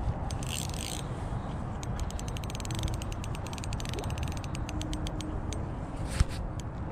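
Spinning reel giving a fast run of fine clicks for several seconds while a hooked trout is played close to the bank, over steady wind rumble on the microphone. A short splash comes about half a second in, and a single sharp knock near the end.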